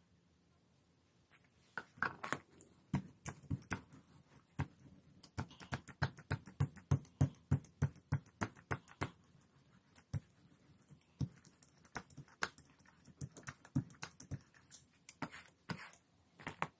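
Irregular tapping and clicking as black block-printing ink is worked onto a gelli printing plate, with quick runs of taps in the middle.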